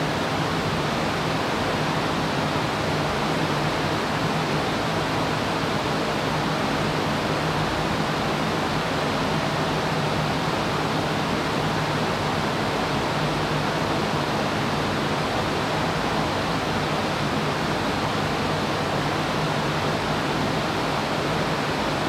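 Steady whir of a roomful of fans: dozens of GPU mining rigs' cooling fans and the box fans set in front of them, all running together, with a steady low hum underneath.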